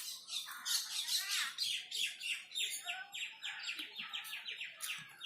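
Small birds chirping, ending in a rapid run of short, falling notes, about five a second.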